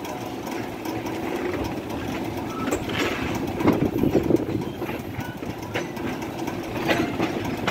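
Wheels of a passenger coach running slowly over the track, with a steady rumble and irregular clacks over the rail joints. A cluster of louder clacks comes about three to four seconds in.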